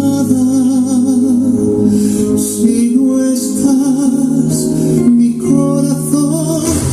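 A song with a singer's held, wavering notes over instruments, played by a JVC JR-S401 receiver's radio tuner through its loudspeakers.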